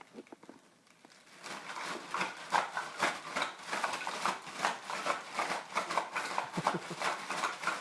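Plastic Lego bricks clattering and rattling as a child bangs and stirs them, a dense run of sharp clicks that starts about a second and a half in.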